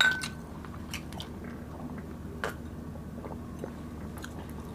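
Two glass beer mugs of water clinked together once, right at the beginning, a sharp clink with a short bright ring. After it, small scattered mouth clicks of eating and drinking.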